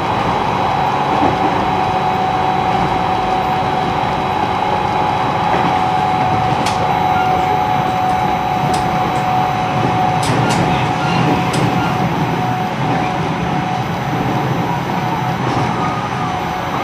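Running sound inside the motor car of an E129 series electric train cruising at a steady speed: a constant rumble of wheels on rail with a steady whine from its Toyo Denki IGBT inverter and traction motors. A few sharp clicks come between about seven and twelve seconds in.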